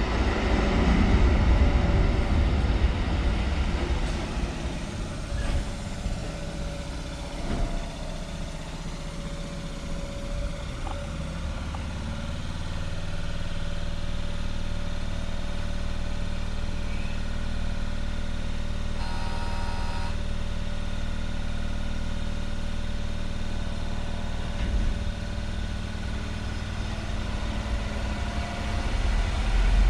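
EN57 electric multiple unit pulling into the platform, its low rumble easing off over the first several seconds as it brakes to a halt, then standing with a steady hum from its onboard equipment. A brief tone sounds about twenty seconds in.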